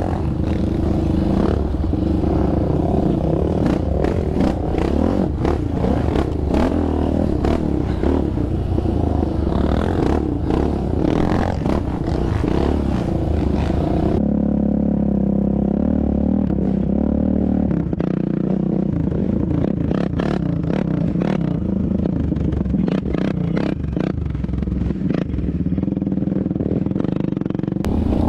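Yamaha Raptor 700R quad's single-cylinder four-stroke engine running under changing throttle, rising and falling in pitch while riding a rough dirt trail, with clattering knocks from the machine bouncing over the ground. About halfway through, the sound turns duller.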